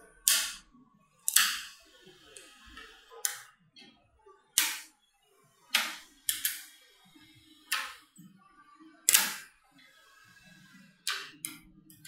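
Slabs of small neodymium magnetic balls being set down and snapping onto each other: about ten sharp clacks at irregular intervals, roughly one a second, each with a short fading ring.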